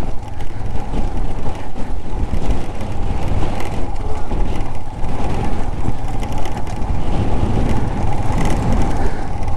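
Royal Enfield Himalayan 411's air-cooled single-cylinder engine running as the motorcycle rides slowly, a continuous loud, rough noise.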